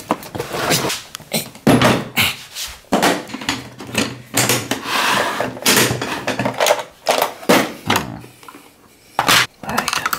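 Rummaging in a cupboard, then a plastic toolbox set down and opened: a series of sharp knocks and clatters with rustling, and tools rattling in the plastic tray.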